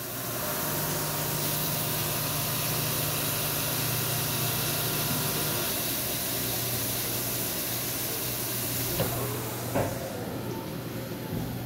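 CNC vertical mill face-milling a 6061-T6 aluminium plate under flood coolant: a steady spray hiss over a low machine hum that drops in pitch about halfway through. A few knocks come near the end, and the hiss then dies down as the finishing cut ends and the coolant stops.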